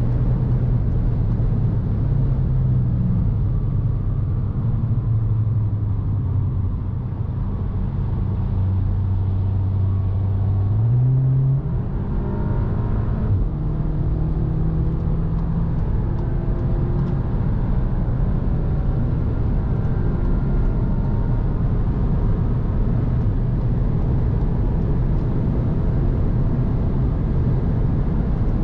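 Cupra Ateca's 2.0 TSI turbocharged four-cylinder heard from inside the cabin at high motorway speed, under steady road and wind noise. It eases off, then about eleven seconds in the engine note jumps up as the DSG gearbox drops a gear, and the car accelerates hard back up to about 200 km/h.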